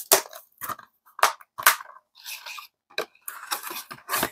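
Plastic Blu-ray case being handled: a string of sharp clicks and snaps as the disc is pressed onto the case's hub and the case is shut, with short scraping stretches as the case slides into its cardboard slipcover near the end.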